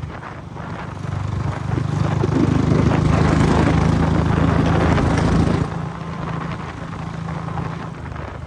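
Royal Enfield Bullet 500's single-cylinder engine running steadily under way. A louder rushing noise swells in about two seconds in and falls away sharply after about five and a half seconds.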